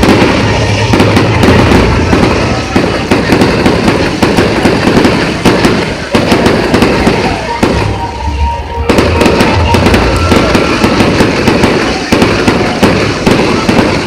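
Fireworks display going off in quick succession: a dense run of loud bangs and crackles, easing briefly about eight seconds in before building again.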